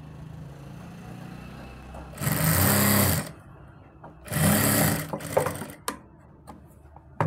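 Electric sewing machine stitching in two short runs of about a second each, about two and four seconds in, sewing down the folded side slit (chak) hem of a kameez.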